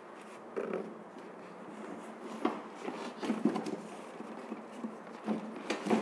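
Iron plant stand frames handled in their cardboard shipping box: scattered, irregular knocks and scrapes of metal rods with cardboard rustling.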